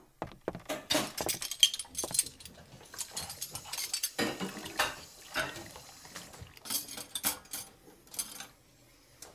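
Plates, glasses and cutlery clinking and clattering irregularly as a dinner table is cleared, the clinks thinning out near the end.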